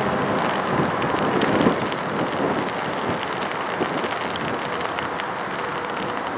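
Jet engine noise from an EVA Air Boeing 777 on approach with gear down, a steady rushing roar with a faint whine that fades as the airliner flies away. Rain patters throughout.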